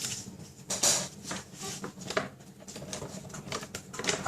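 Card stock and paper being handled on a craft desk: a quick, irregular run of light taps and clicks with soft rustling, as small paper squares are picked up, lined up and pressed down onto a card strip.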